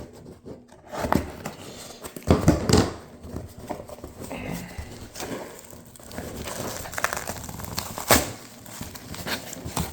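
A cardboard shipping box being opened by hand: irregular tearing, crinkling and rustling of cardboard and packing, with scattered sharp clicks. The loudest bursts come about two and a half seconds in and about eight seconds in.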